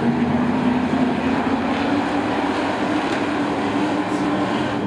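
Race trucks' engines running on a short oval track in a steady, continuous drone.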